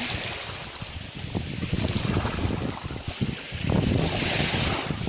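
Small waves washing up and drawing back over a beach of tiny shells and gravel, with wind buffeting the microphone. A wash of surf swells up about four seconds in.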